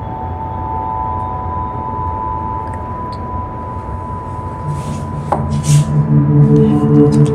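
Steady low rumble and hum of a ferry's engines. About two-thirds through, ambient music with long held, bell-like notes comes in over it, with a few brief rustles.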